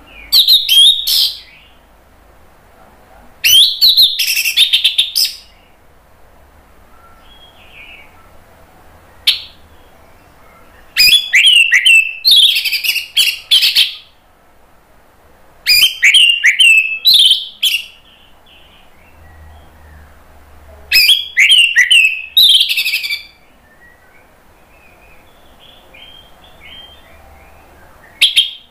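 Orange-headed thrush singing loud bursts of rapid, varied whistled and chattering phrases, each one to three seconds long and repeated every few seconds, with soft quiet notes in the pauses.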